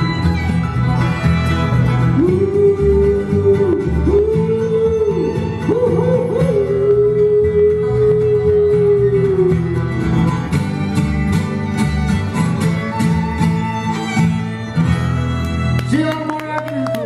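Bluegrass band playing live on fiddle, mandolin, banjo, acoustic guitar and upright bass, with long held notes that slide in pitch over the strummed and plucked strings. The music cuts off abruptly at the end.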